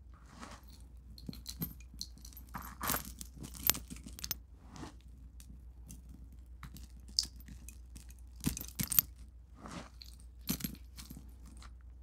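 Small hard debris such as beads, buttons, coins and sequins being handled and scattered over carpet with clumps of lint: irregular soft rustles and light clicks, with a few sharp clicks, the loudest about three-quarters of the way through. The vacuum cleaner is not running.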